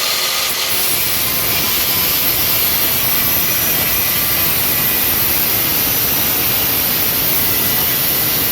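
Handheld power tool running steadily under load, a loud, even grinding hiss that holds at one level throughout.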